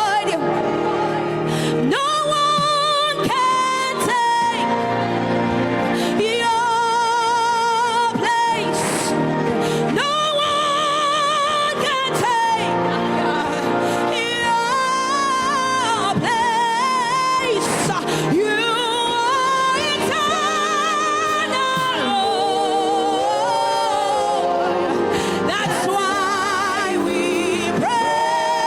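Gospel worship singing: a voice holding long notes with wide vibrato in phrases of a few seconds each, over music.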